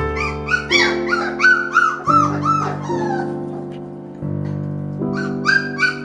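Young puppies yipping and whimpering: a rapid run of short, high, arching cries over the first three seconds, then a few more about five seconds in, over steady background music.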